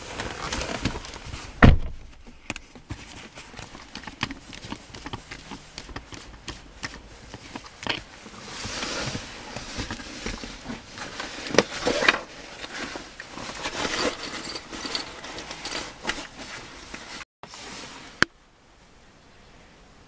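Hands twisting, pulling and handling a manual gear shift knob taken off its lever: irregular clicks, scrapes and rustles, with one sharp knock, the loudest sound, near two seconds in.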